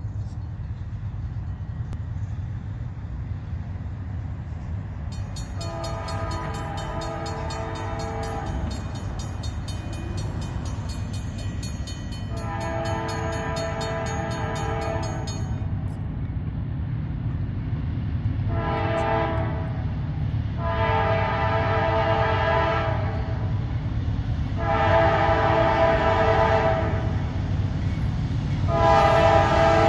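Horn of a Norfolk Southern GE C40-9W diesel locomotive sounding a chord in six blasts (two long, one short, then three more long), the pattern of a grade-crossing warning. Under it the locomotive's rumble grows steadily louder as the loaded rail train approaches.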